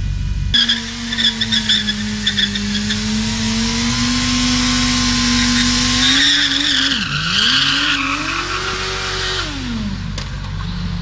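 Sportbike engine held at high revs during a burnout, the rear tyre spinning and squealing on the asphalt. The revs dip and climb again about seven seconds in, then fall away near the end.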